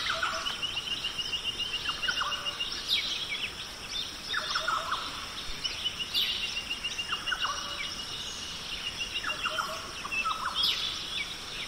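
Birds chirping, with short falling chirps and a fast, even trill that comes twice, each time for about two seconds.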